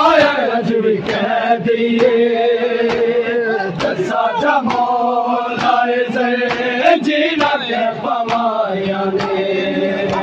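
A crowd of men chanting a noha lament in unison, with long held notes, over regular slaps of hands on bare chests, about two a second: the chest-beating of matam.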